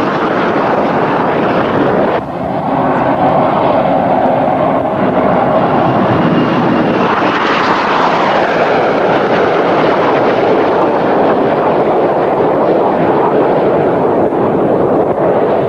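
Jet engine noise from low-flying jet aircraft passing overhead, a continuous loud rush that swells to its loudest about halfway through, with a sweep in pitch as a jet goes by.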